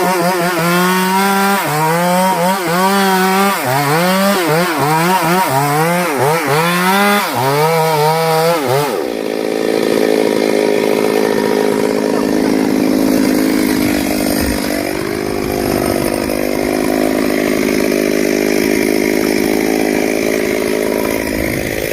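Chainsaw revving up and down in repeated surges for about the first nine seconds. It then switches to running steadily at high speed, cutting through a wooden log for the bonfire.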